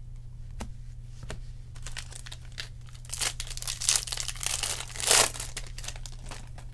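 Foil trading-card pack wrapper being torn open and crinkled by hand: a dense crackling from about three seconds in, loudest just after five seconds. Before it, a few soft clicks of cards being handled.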